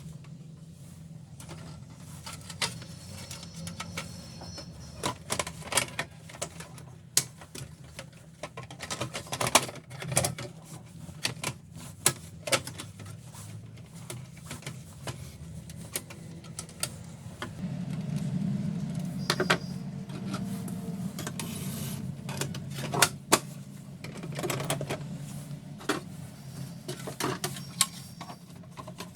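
Canon LBP2900 laser printer running: a steady low motor hum with many irregular mechanical clicks and clacks. The hum swells for a few seconds past the middle.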